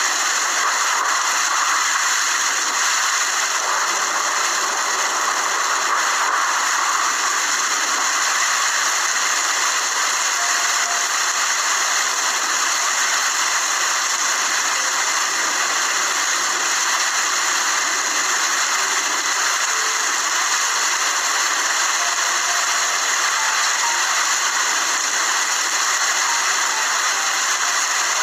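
Steady rain: a continuous, even hiss of falling rain with no change in level.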